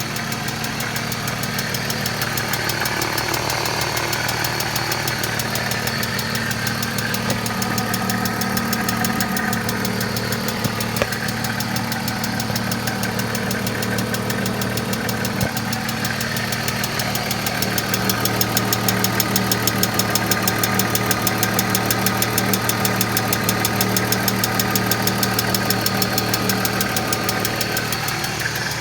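1995 BMW E36 M3's S50 straight-six engine running steadily with a fast, even, loud ticking from the valvetrain: the lifters ticking.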